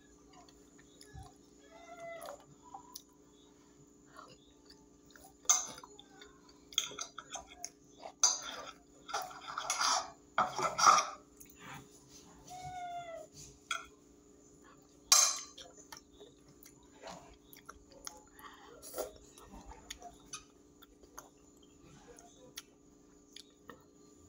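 Metal fork clinking and scraping against a glass plate, with chewing between the sharp clicks, over a steady low hum. A few short pitched calls come through faintly near the start and about halfway.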